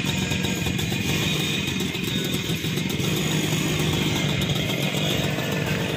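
TVS 50 moped's small two-stroke single-cylinder engine idling steadily.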